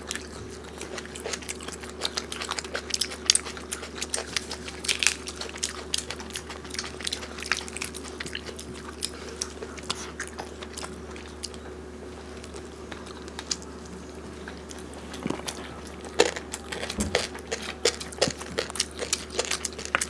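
Close-miked eating: biting into and chewing curried giant freshwater prawns by hand, a steady run of wet mouth clicks and smacks with some crunching of shell. A faint steady hum sits underneath.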